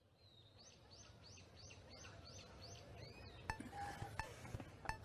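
Outdoor ambience fading in: a bird calls with a short rising note repeated about three times a second. From about three and a half seconds in, faint sharp clicks take over.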